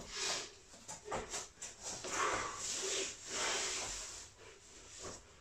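A man breathing hard from exertion during ground drills, in irregular hissing breaths about once a second, with a longer breath near the middle and some rustling of movement.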